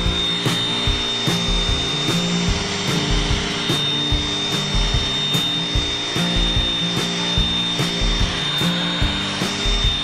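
Cordless handheld vacuum cleaner running steadily with an even high whine as it is drawn over a carpet mat, sucking up spilled cereal.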